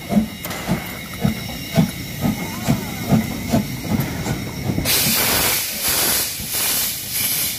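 Narrow-gauge steam locomotive 99 234, an HSB 2-10-2 tank engine, pulling away slowly with rhythmic exhaust chuffs about two a second. About five seconds in, a loud hiss of steam from the open cylinder drain cocks sets in, pulsing with each stroke.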